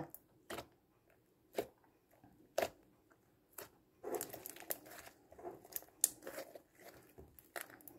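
Homemade PVA-glue slime with foam beads being pressed and kneaded by hand, giving faint wet clicks and pops. A few scattered clicks come first, then a denser run of crackling from about four seconds in.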